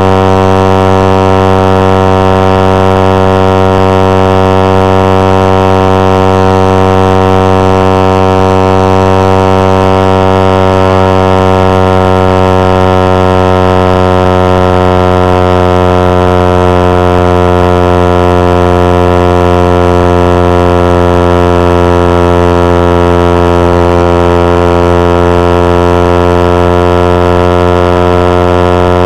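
Suzuki GSX-R150's single-cylinder four-stroke engine held at high revs under full throttle, a loud, steady drone at almost constant pitch.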